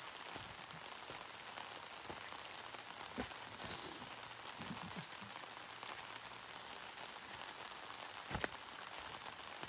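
Quiet tropical forest ambience with a steady high-pitched insect hum, broken by a few faint knocks and one sharp click about eight and a half seconds in.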